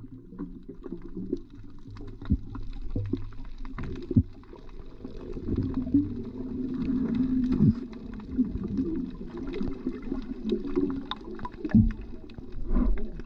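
Muffled underwater sound: low water noise with wavering low tones and scattered clicks and knocks, as picked up by a camera below the surface.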